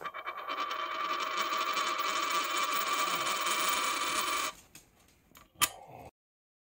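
A Canadian five-cent coin spinning down on edge on a wooden tabletop: a fast, rattling ring as it wobbles, cutting off suddenly after about four and a half seconds when the coin drops flat. One sharp click about a second later.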